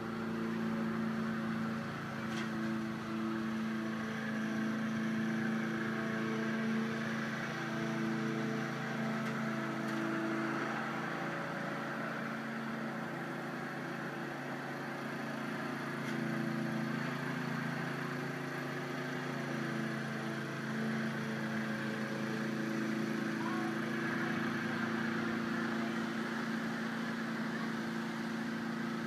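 Small single-cylinder engine of a walk-behind gas lawn mower running steadily while the mower is pushed across the grass cutting, its level rising and falling slightly as it moves.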